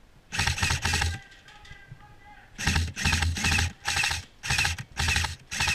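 Airsoft electric gun (AEG) firing short full-auto bursts, each a fast rattle of shots: two bursts near the start, then after a pause of about a second and a half, a rapid string of bursts.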